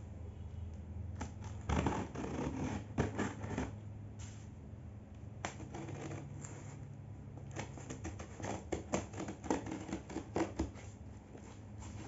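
Scissors cutting and scraping along packing tape on a cardboard box, in two spells of snips and scrapes: about two seconds in, and again about eight seconds in.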